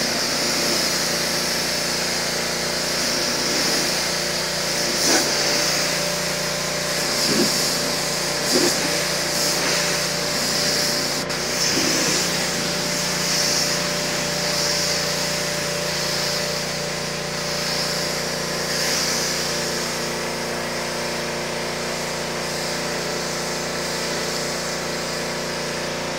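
Pressure washer running steadily: a constant motor hum under the hiss of the high-pressure water jet blasting leaves and grime off pavement.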